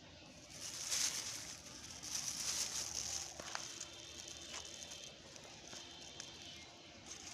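Rustling and crackling of old plastic litter being picked up and handled, loudest about one to three and a half seconds in, then fainter with a few sharp crackles.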